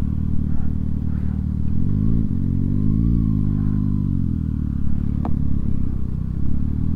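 Kawasaki Ninja ZX-6R inline-four engine running on the road, its revs rising and falling a couple of times. A single sharp click sounds about five seconds in.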